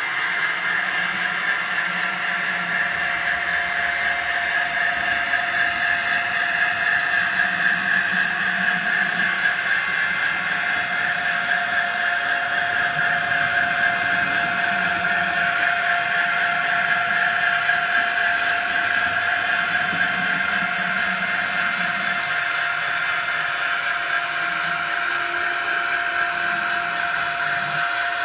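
Model railway locomotive running with a digital sound decoder, playing a steady engine sound through its small loudspeaker over the whine of its drive. A steady mid-pitched tone in the sound grows stronger about a third of the way in.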